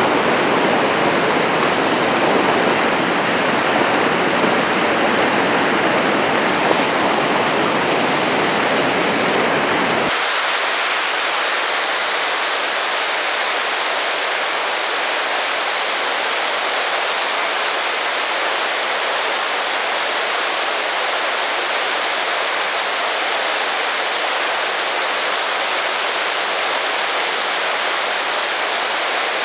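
Steady rush of fast river rapids. About ten seconds in the sound changes abruptly and loses its low rumble.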